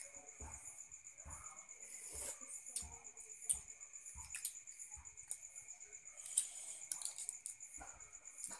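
Boiled balut eggshell being picked and peeled off by fingers: irregular small crackles and clicks, the two sharpest about three and a half and six and a half seconds in.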